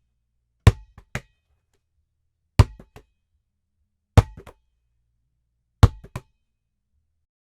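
A basketball bouncing on a hard floor, recorded dry without room echo: four hard bounces roughly two seconds apart, each followed by one or two quick, softer rebounds.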